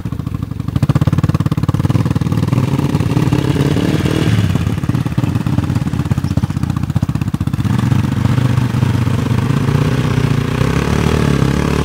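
Yamaha Raptor 350 quad's single-cylinder four-stroke engine running under load while wading through a shallow stream, its pitch rising and falling as the throttle opens and closes, with water splashing around the wheels.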